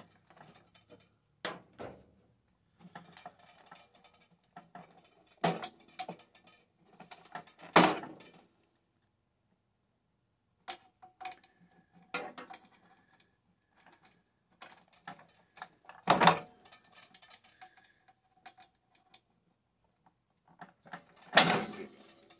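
Intermittent clicks, rattles and clatter of tools and metal and plastic parts being handled while a microwave oven is taken apart, with four sharp knocks standing out.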